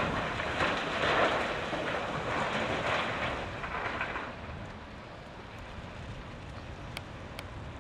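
Blasted rock pouring off a Volvo L260H wheel loader's side dump bucket into a dump truck's steel bed, a rattling, crashing rush of stone that tapers away about four seconds in. After it the loader's engine rumbles steadily, with a couple of faint clicks near the end.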